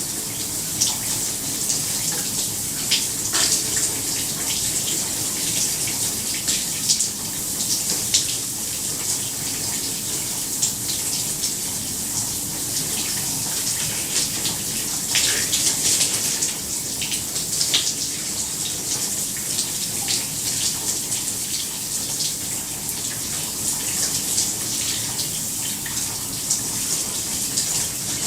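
Shower running steadily: a continuous hiss of spray with frequent small splashes and drips as the water hits the floor.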